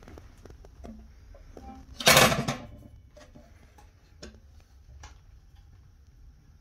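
Steel top lid of a homemade welded-steel camping wood stove being lifted open: one loud metallic clank about two seconds in, then a few light clicks.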